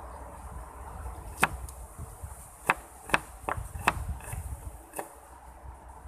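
A kitchen knife chopping through a small red onion on a banana leaf laid over a table, making six sharp knocks spread unevenly over a few seconds.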